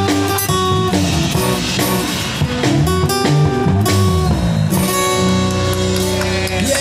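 Live amplified band playing a song: electric and acoustic guitars with a drum kit, and a man singing into a handheld microphone.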